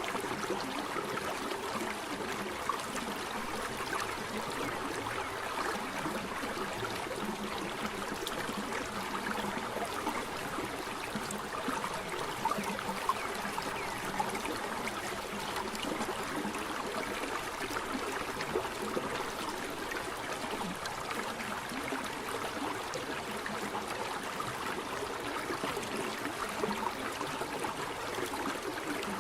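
Running water of a waterfall, falling and splashing in a steady, unbroken wash of sound.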